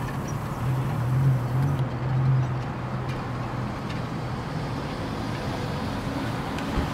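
Steady low engine drone over a traffic-like rush, swelling for a couple of seconds about a second in.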